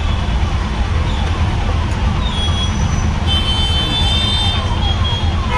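Busy street traffic: a steady low rumble with a string of short falling chirps, two to three a second. A high steady tone joins about halfway through.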